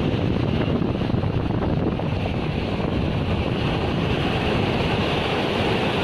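Rough sea surf breaking and washing up a pebble beach in a storm, with wind buffeting the microphone as a steady low rumble.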